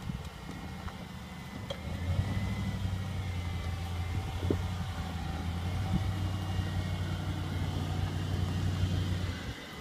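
Jeep Commander's engine running at low revs as the SUV crawls through mud, a steady low hum that gets louder about two seconds in and eases off just before the end.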